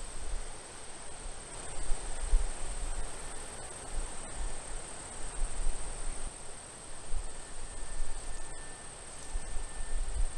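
Insects trilling steadily in a high, even drone across a summer meadow and woods, with intermittent low rumbles coming and going underneath.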